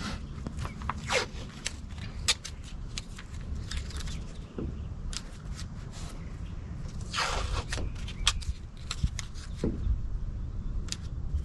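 A plastic squeegee scraping and tapping irregularly as vinyl registration numbers are rubbed down onto a boat's hull, with one longer swipe about two-thirds of the way through, over a steady low rumble.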